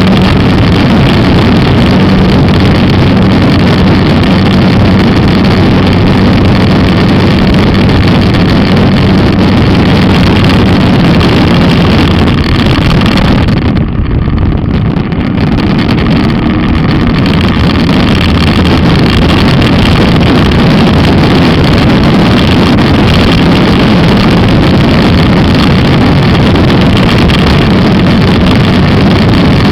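Skua 250 motorcycle engine running steadily while riding, with wind rushing over the microphone. About halfway through, the sound dips and turns duller for a couple of seconds.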